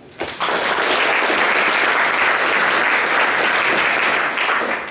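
Audience applauding: steady clapping that starts just after the opening and dies away near the end.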